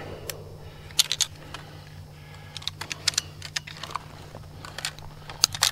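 Scattered metallic clicks and rattles from the action of a 12-gauge pump shotgun (a New Haven 600 AT, a Mossberg 500 type) as it is handled and worked to clear a malfunction, which the shooter thinks may be an extractor problem. The clearest clicks come about a second in and near the end.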